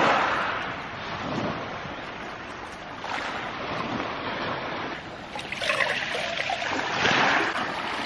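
Surf on a beach, swelling and fading with each wave, with some wind on the microphone.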